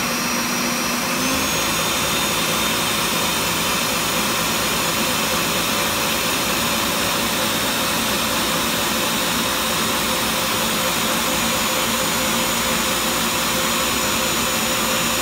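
Countertop blender running steadily at high speed, its motor and blades liquefying pineapple and cucumber into a smooth drink.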